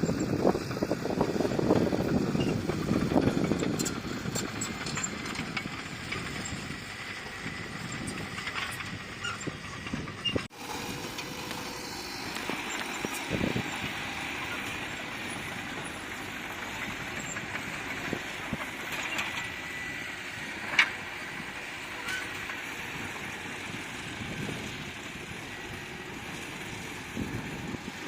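Heavy earthmoving machinery running with a steady engine noise, loudest in the first few seconds. The sound breaks off abruptly about ten seconds in and resumes at a steady level, with one short sharp knock later on.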